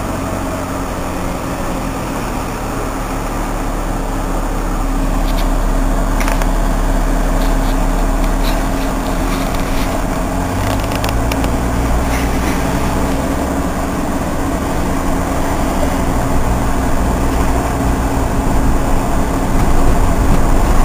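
Engine and road noise of a moving vehicle, heard from inside its cabin: a steady low running sound whose engine note changes about halfway through.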